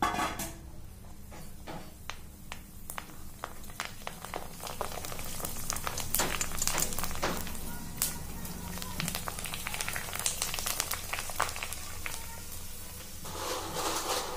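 Pani puri dough discs deep-frying in hot oil in a kadai, crackling and sizzling as they puff into round puris. The crackle grows busier about halfway through.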